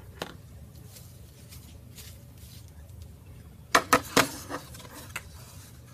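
Hands working lace through a wooden slatted sign on a countertop: a quick cluster of four or five sharp knocks and taps a little under four seconds in, over a faint steady low hum.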